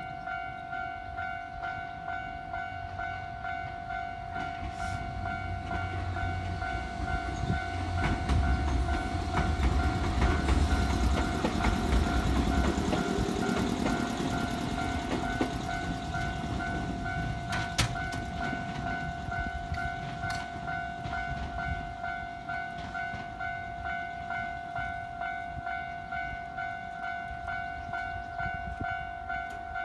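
Railway level crossing warning bell ringing on a steady pitch throughout as a Nankai train passes over the crossing. The train's rumble builds to its loudest about ten to fifteen seconds in, with a few sharp clicks near eighteen seconds, then fades away.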